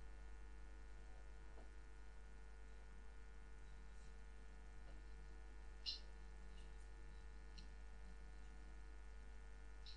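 Near silence with a faint steady electrical hum and a single faint click about six seconds in.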